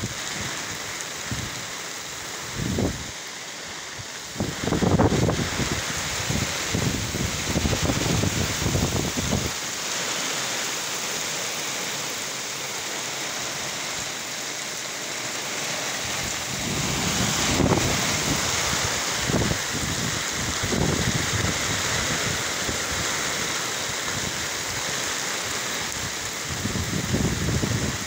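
Heavy tropical rain falling steadily in a downpour. Low rumbling gusts of wind surge in about four seconds in, again after about seventeen seconds, and near the end, and these are the loudest moments.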